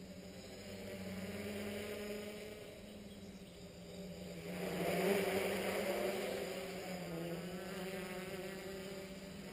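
Small electric T-copter's three propellers and motors buzzing in flight, a steady hum that shifts slightly in pitch. It grows louder about five seconds in, then eases off.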